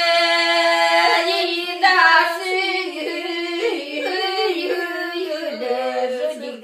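An elderly woman singing a Romanian folk song unaccompanied. She holds one long note at the start, then the melody moves on in short steps and falls lower toward the end.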